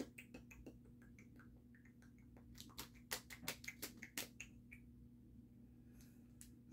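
Trading card packs and cards being handled: faint, scattered clicks and crinkles, thickening into a denser run of sharper clicks around three to four seconds in.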